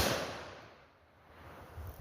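The report of an AR-15 rifle shot fired just before, echoing and fading away over about a second, followed by faint low rumbling.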